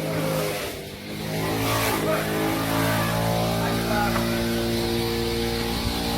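An engine running steadily, picking up speed about two seconds in and then holding a higher, even pitch.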